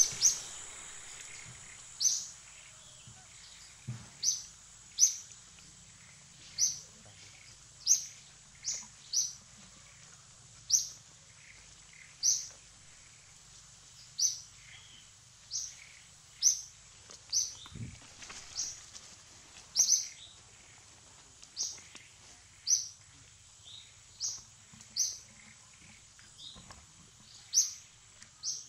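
A bird calling over and over in short, high-pitched chirps, spaced irregularly about once a second. Two soft low thumps sound under them, a few seconds in and again past the middle.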